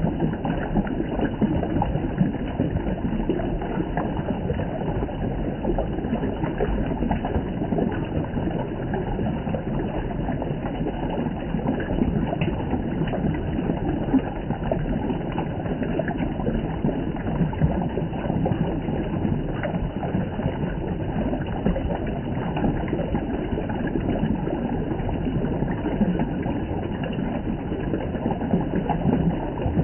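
Spring water flowing and splashing in a steady rush, with many small splashes and gurgles.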